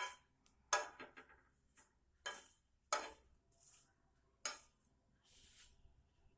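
A kitchen utensil scraping and clicking against a hot iron tawa as roasting leaves are pressed and turned while they char to ash: several short, sharp strokes about a second apart, with a softer scrape near the end.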